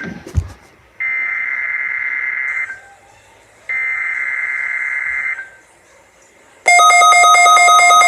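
NOAA Weather Radio SAME digital header: two harsh, buzzing data bursts of about a second and a half each, a second apart. A loud steady warning alarm tone starts near the end. This is the weekly required test of the weather radio warning alarm.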